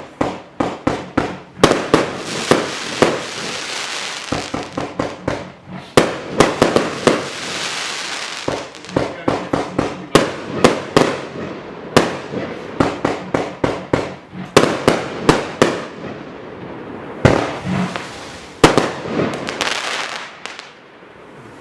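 A 100-shot 30 mm compound firework cake firing: rapid volleys of launch thumps and bursting reports, several a second, with crackling and hiss between the shots, dying away near the end.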